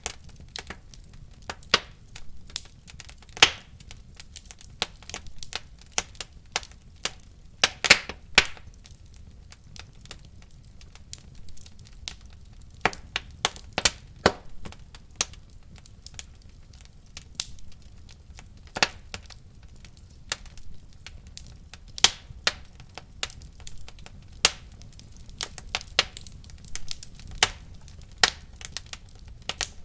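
Wood fire burning in a fireplace, crackling and popping at irregular intervals over a low steady rumble.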